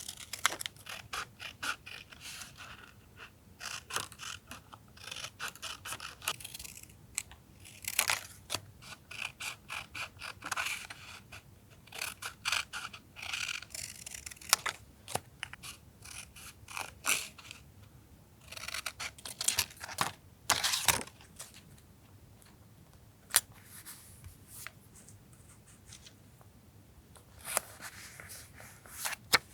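Paper and stationery being handled for collage journaling: irregular short rustles, scrapes and crinkles of paper and stickers being moved, cut and pressed down.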